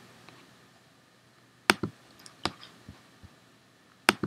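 Computer mouse clicking: a handful of short, sharp clicks spread over a few seconds, with a quick double click near the end.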